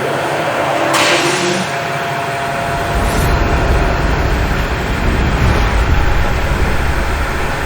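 Rice mill paddy-boiling plant running: a loud, steady mechanical din with a short, loud hiss about a second in, and a deep rumble that builds from about two and a half seconds in.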